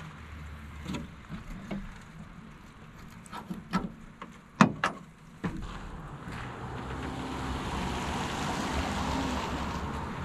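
Scattered knocks and clanks from handling the pickup's removed tailgate, with one sharp, loud knock about halfway. From about six seconds a broad rushing noise swells up and holds.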